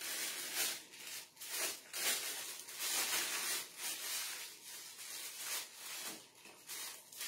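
Plastic piping bag crinkling and rustling as it is handled and twisted, in an irregular run of rustles.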